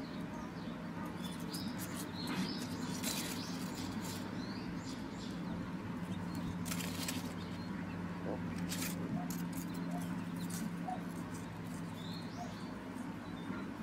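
Outdoor ambience with small birds chirping now and then over a steady low hum.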